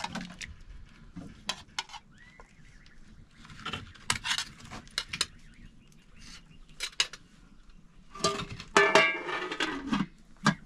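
A metal utensil clinks and scrapes against an aluminium cooking pot and a metal plate as cooked squash pieces are lifted out, in scattered short knocks. A louder ringing stretch comes about eight seconds in.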